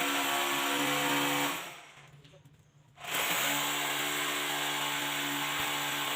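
Electric power tool motor running at steady speed, winding down after about a second and a half, then switched on again about three seconds in and run steadily until it winds down near the end.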